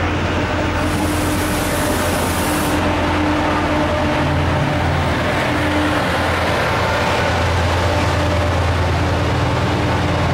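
TransPennine Express train of Mark 5A coaches rolling past on the rails, with a brief high hiss about a second in. From about halfway the Class 68 diesel-electric locomotive passes, its engine's low hum growing stronger near the end.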